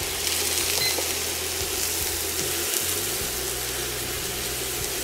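Liquid cream sizzling as it is poured into a hot frying pan of browned chestnuts and shallots to deglaze it, then stirred with a silicone spatula; a steady hiss.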